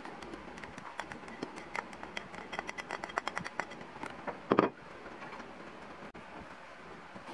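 Plastic rice paddle scraping and tapping diced vegetables off a ceramic plate into a stainless steel pot, many small clicks and taps, then one louder clatter about four and a half seconds in.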